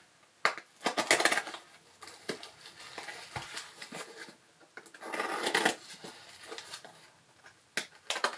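Hobby knife slitting brown packing tape on a small cardboard parcel, with the paper and cardboard rustling and scraping in irregular bursts and a few short sharp clicks.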